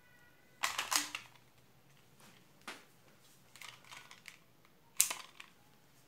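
Plastic clicks and clatter from handling a plastic air-conditioner remote control as it is taken out of its wall holder. The clicks come in a cluster about half a second in, then singly, and the loudest is a sharp click about five seconds in.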